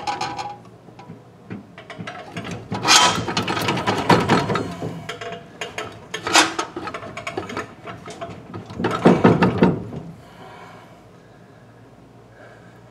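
Metal clunking, clicking and scraping from a Willys MB transmission being pushed and twisted so its splined main shaft lines up with the clutch disc. It comes in irregular bursts, about three seconds in, once sharply around six seconds and again around nine seconds, then it goes quieter.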